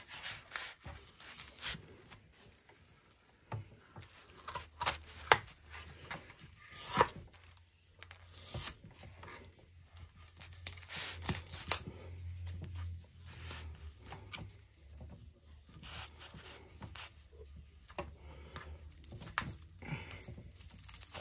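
A knife slicing and tearing through a padded paper mailer: irregular scrapes, rips and rustles of paper and packaging, with a few sharper rips in the first half.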